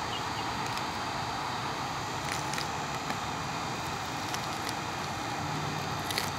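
Steady blowing hiss of a heat gun warming the badge adhesive, with a few faint light clicks from plastic pry tools working behind the emblem.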